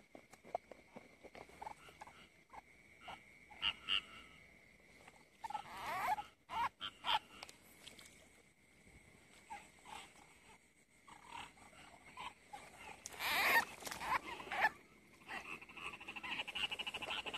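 Rice-field frogs calling in a chorus after heavy rain: short croaks come one after another over a steady, thin high-pitched tone. A louder, noisier stretch lasts about a second and a half, a little past two-thirds of the way in.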